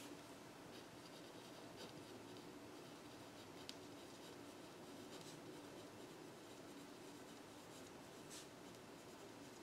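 Faint scratching of a pencil writing words on paper, with a few light ticks as the point strikes the page.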